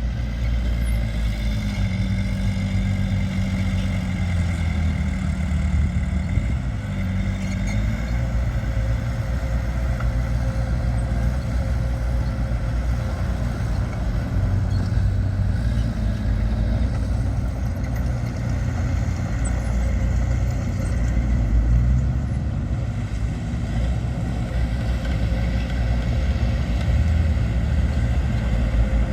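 Diesel engine of heavy earthmoving machinery running steadily, its note wavering up and down over the first several seconds.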